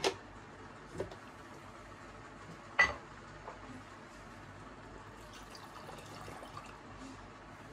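Milk poured from a glass into a plastic blender bottle, a faint steady pour. One sharp clack about three seconds in, with a few lighter knocks before it.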